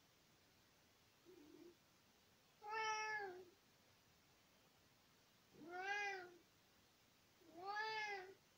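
Elderly tabby tom cat meowing: a short, soft call, then three long meows a couple of seconds apart, each rising and then falling in pitch.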